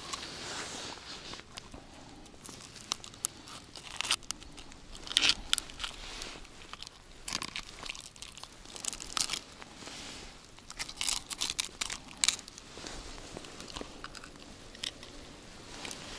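Close-up handling noise from working a deeply swallowed hook and live bait free of a pike: irregular crunches, crackles and sharp clicks, coming in clusters, with the loudest snaps about five seconds in and again about twelve seconds in.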